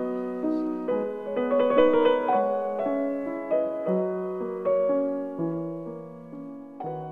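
Estonia grand piano played solo: a slow classical melody of single notes and chords, each ringing and dying away, the playing growing softer toward the end.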